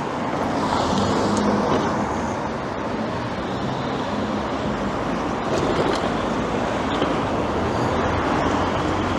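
Road traffic going past steadily, a continuous rush of tyres and engines with a low engine hum underneath.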